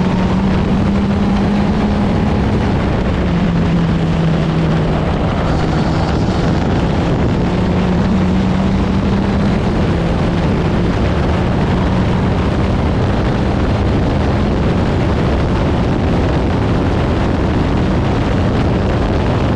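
Open-wheel race car's engine running hard on track, heard from the cockpit under heavy wind rush on the microphone. Its note shifts down and back up every few seconds.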